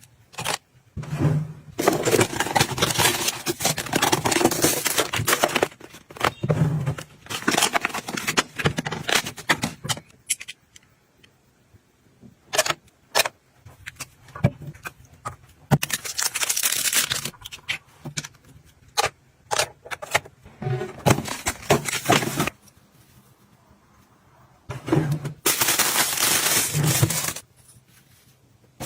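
Household items being handled: crackling, rustling and clattering in bursts of a few seconds, with sharp clicks and short quiet pauses between.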